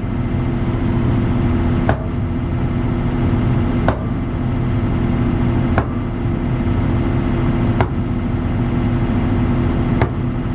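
ASV RT-40 skid steer's engine running steadily close by, with a sledgehammer striking a concrete slab about every two seconds, five blows in all, to break it up.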